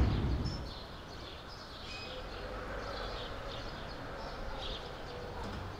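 Outdoor city street ambience: a steady background hum of urban noise with small birds chirping now and then. A transition whoosh dies away in the first second.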